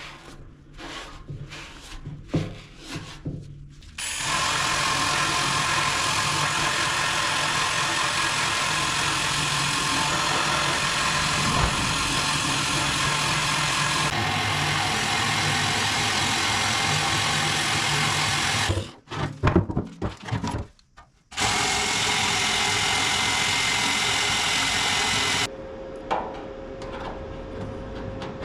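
A handheld power tool working on a steel fuel tank: after a few handling knocks it runs steadily for about fifteen seconds, stops briefly, runs again for a few seconds, then cuts out, leaving a quieter steady hum.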